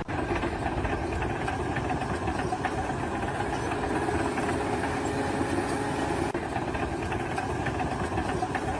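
An engine running steadily at an even level, with a dense mechanical noise.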